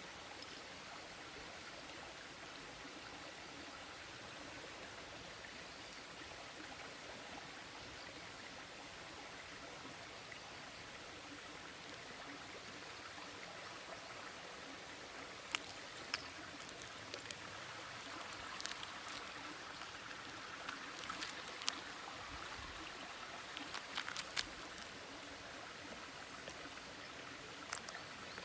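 Steady rushing outdoor background noise, like running water, with scattered small sharp clicks and scuffs starting about halfway through and coming more often near the end.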